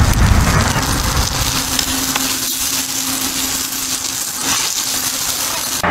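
Green onions sizzling on a hot iron griddle plate over a wood fire: a steady, loud hiss, with a low rumble in the first second and a steady low hum through the middle.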